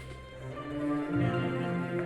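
Orchestral music with long held notes over a low bass line that moves to a new note about a second in.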